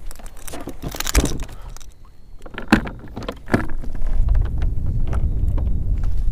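Scattered knocks and clatter of fishing gear against a plastic kayak hull. From about four seconds in, a low rumble of wind on the microphone builds.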